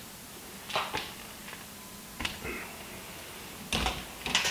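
Wire strippers working the end of an electrical wire: a few short snips and clicks roughly a second apart, with a dull knock near the end.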